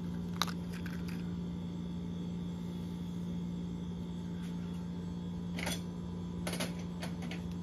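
A steady low hum, with one small sharp click about half a second in and a few faint short handling noises near the end.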